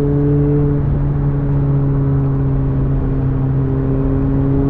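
McLaren 720S's twin-turbo V8 held at steady, raised revs in fourth gear at highway cruising speed, a constant engine drone heard from inside the cabin over road noise.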